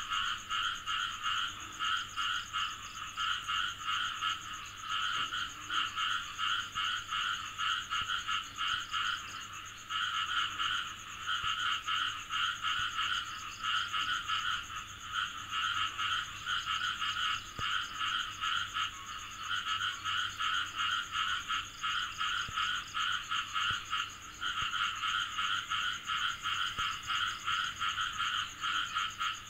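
A chorus of frogs calling: rapid trains of pulsed calls that come in bouts with brief lulls, over a steady high-pitched whine.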